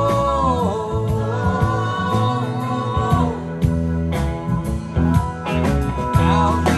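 A live rock band playing a song, with sung vocals over guitars, keyboards, bass and drums.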